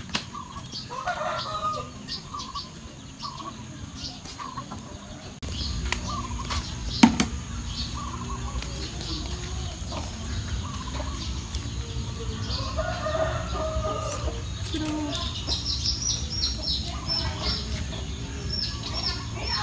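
Chickens clucking off and on, with a run of high chirps near the end. A low rumble sets in after about five seconds, and there is one sharp knock about seven seconds in.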